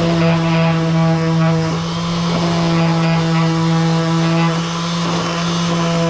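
Makita random orbital sander running as it sands a small wooden block, giving a loud, steady hum.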